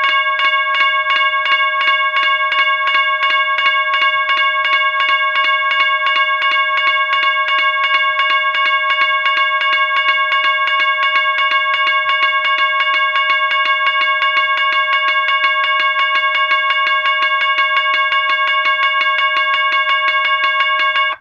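General Signals Type 1 electronic railway crossing bell ringing continuously: a rapid, even string of several strikes a second, each with the same bright bell-like tone. Its circuit has been converted to the loud-tone variant. The ringing cuts off abruptly near the end.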